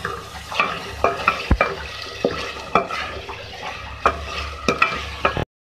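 Wooden spoon scraping and knocking against a metal pot as beef and spice masala is stir-fried (bhuna), with the oil sizzling underneath. The sound stops abruptly near the end.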